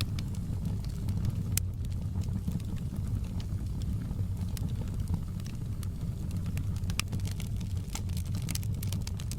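Fireplace fire crackling, with scattered sharp pops and snaps over a steady low rumble.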